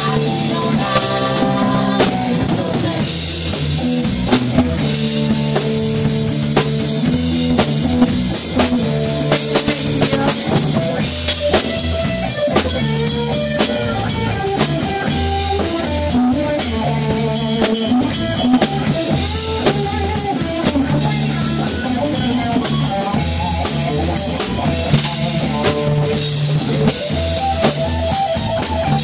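Live rock band playing loudly: drum kit keeping a steady beat under electric guitar and bass, with a wavering melodic lead line over the top.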